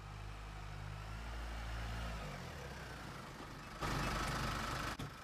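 Jeep Wrangler's engine running, heard from inside the cabin, its pitch dropping as the car slows about two seconds in. After a sudden change near the end, a louder steady outdoor rumble of traffic and engine noise with a faint whine.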